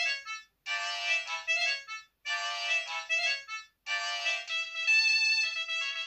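Polyphonic ringtone from a T3000 Chinese mobile phone playing through its small loudspeaker, thin with no bass: a short reedy melody phrase repeats three times with brief gaps, then changes to longer held notes about four and a half seconds in.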